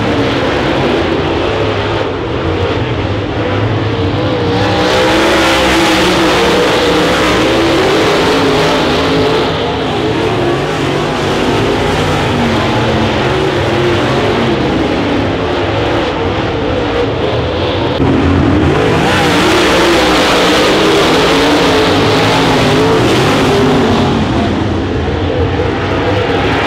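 Several dirt late model race cars' V8 engines running hard on a dirt oval, the pitch wavering up and down as they go through the corners and down the straights. The sound swells twice as the pack comes nearer.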